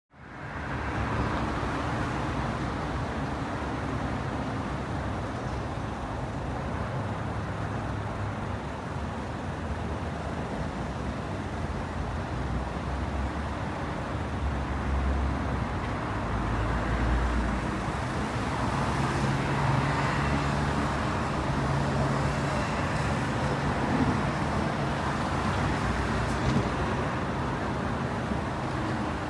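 Steady road traffic noise with vehicle engines running, a little louder in the second half.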